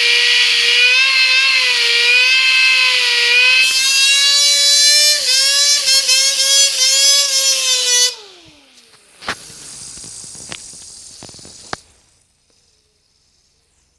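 LEGO hand spinner driven by a compressed-air blow gun, spinning fast with a loud, high, buzzing whine like a small nitro model car engine, its pitch wavering. About eight seconds in, the air blast stops and the whine falls in pitch as the spinner slows. A fainter hiss with a few sharp clicks follows before it goes quiet.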